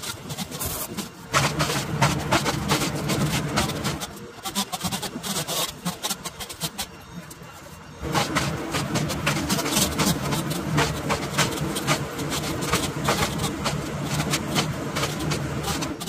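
Engine running with a steady low hum under many sharp clicks and knocks, likely the tree service truck at work. The noise falls away about four seconds in and comes back about eight seconds in.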